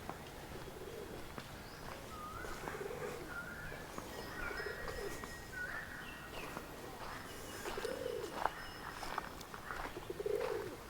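A dove cooing in low, rising-and-falling phrases every two to three seconds, with short chirps from a smaller bird in the first half.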